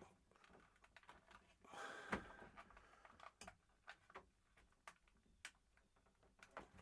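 Faint scattered clicks and light taps of small parts being handled on a shower faucet, with a brief rustle about two seconds in.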